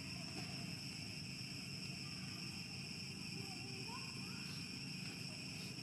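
Steady shrill insect chorus, several even high tones with no break. A couple of faint short calls rise and fall about halfway through.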